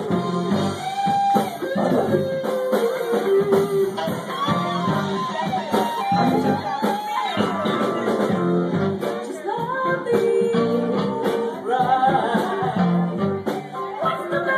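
Live band music: a woman singing lead into a microphone over electric guitar and band backing.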